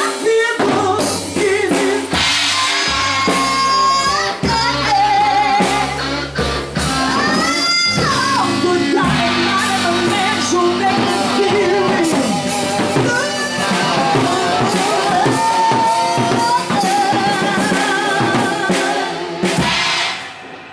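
Music: a singing voice with bass and a drum kit keeping a steady beat, dying away just before the end.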